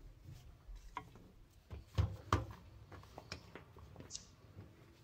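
Scattered light clicks and knocks as the body of a 2-26 rotary hammer drill is handled and turned over on a workbench during disassembly, with a few slightly firmer knocks about two seconds in.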